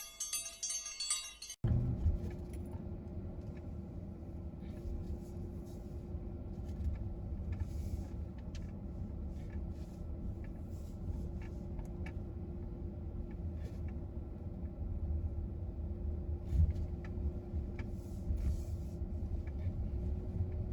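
Light clinking and jingling for about a second and a half, then a sudden change to the steady low rumble of an MG HS SUV driving, heard from inside the cabin, with small knocks and rattles scattered through it.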